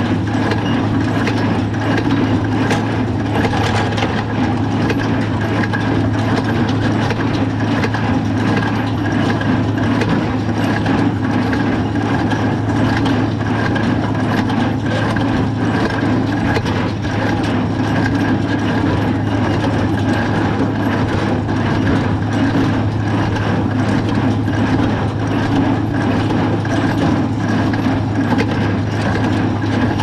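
Allis-Chalmers small square baler running while baling hay, pulled and driven by a tractor: a steady engine drone with frequent mechanical knocks from the baler's working parts.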